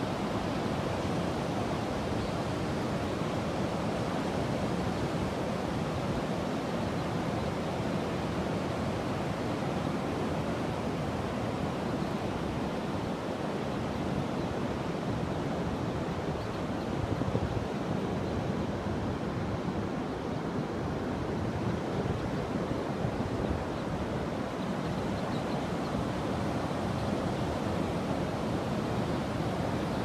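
Ocean surf breaking on a sandy beach: a steady, unbroken wash of wave noise.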